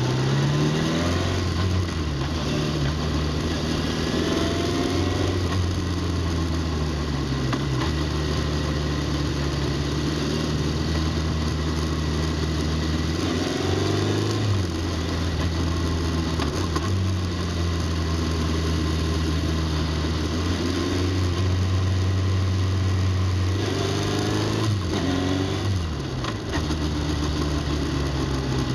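Motorcycle engine running at cruising speed, heard from on board the bike, with its pitch climbing and settling as the rider works the throttle and gears through the bends, notably near the start, about halfway through and near the end. A steady rush of wind noise runs under it.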